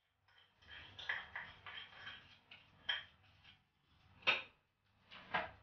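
A spoon and small spice bowls clicking and scraping against a mixing bowl as dry spices are added to yogurt and stirred. Faint scattered scrapes, with a few sharper taps about three, four and five seconds in.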